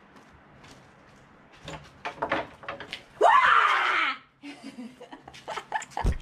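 A gate opening with a few knocks and clicks, then a woman screaming in fright for about a second, loud, followed by laughter.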